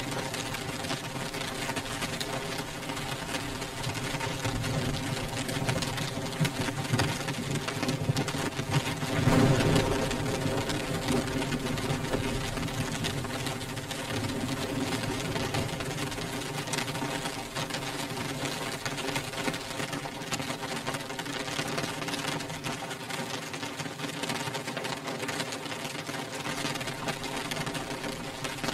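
Rain beating on a window pane: a dense, continuous patter of drops ticking on glass, swelling briefly about nine seconds in.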